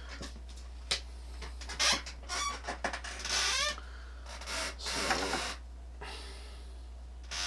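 Small hard parts being handled and rummaged: a run of irregular clicks, scrapes and squeaky rubs, over a steady low electrical hum.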